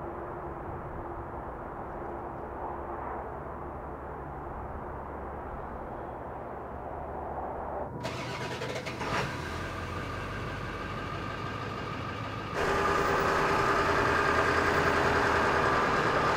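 A diesel pickup truck engine running. A muffled low rumble turns clearer after about eight seconds, with a single knock a second later, and then about four seconds before the end it jumps to a louder, steady engine drone with a held hum.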